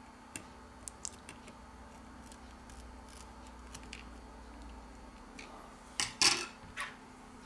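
Light clicks and taps of steel tweezers on a smartphone's internal parts as small components are lifted from the camera area, with a few sharper clicks about six seconds in, over a faint steady hum.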